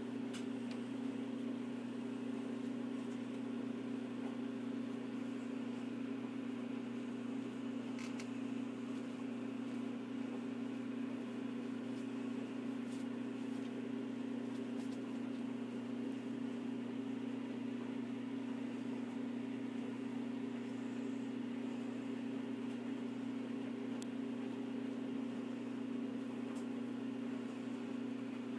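Steady machine hum with a low, even tone that does not change, and a few faint clicks.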